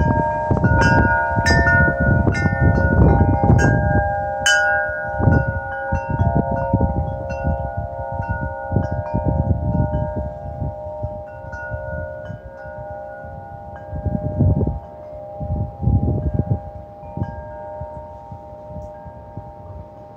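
Wind chimes rung by gusts of wind: several tones ringing together, struck often in the first few seconds and then more sparsely as the gust eases, over a low wind rumble that swells again twice later on.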